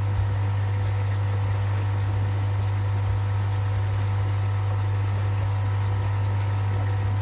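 Steady low hum of an electric air pump, with a few faint ticks.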